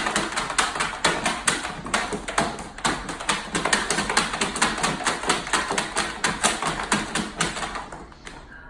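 A puppy's paws scrabbling fast at the floor of a plastic storage tub: a rapid, even run of taps, about four or five a second, fading out near the end.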